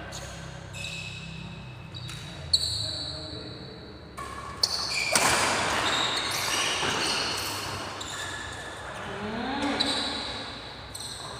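Badminton rally in a large hall: several sharp racket hits on the shuttlecock a few seconds apart, mixed with players' voices.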